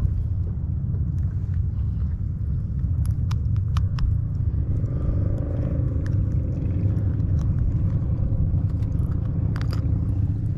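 Steady low rumble of wind on the microphone, with a few small clicks as the hook and line are handled while a small mangrove snapper is unhooked.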